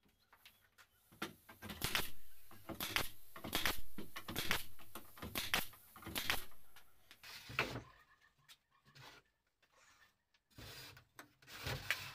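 Nail gun firing into wood, a sharp shot about every half second to second as a board is nailed onto a wooden pallet frame. After a pause of a couple of seconds, a few more shots come near the end.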